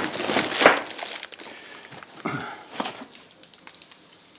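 Packaging being rustled and handled while grinder parts are lifted out of a box: a run of crinkling and knocking, busiest at the start, with another spell about two seconds in, then quieter.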